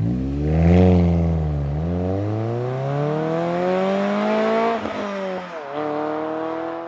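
A car engine accelerating hard, its pitch climbing through the gears and dropping at each of the gear changes, about two and three and five and a half seconds in. It fades out near the end.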